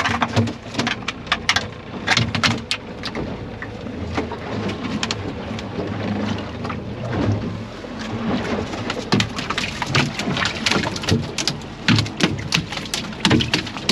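A freshly landed small mahi-mahi flapping and slapping against the fiberglass floor of a small boat: a fast, irregular patter of sharp knocks over a steady low rumble.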